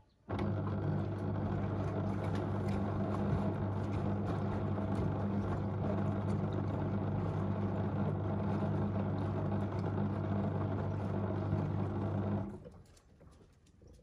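LG DirectDrive front-load washing machine tumbling a waterlogged heavy carpet: a steady low motor hum with water sloshing in the drum. It starts suddenly and cuts off about twelve and a half seconds in, as one wash turn of the drum ends.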